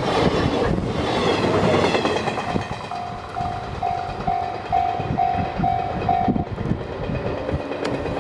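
Sleeper express train rolling past over the rails, its wheel and rail noise dying away about two and a half seconds in. Then the level-crossing warning bell is heard ringing about twice a second, and it stops about six and a half seconds in.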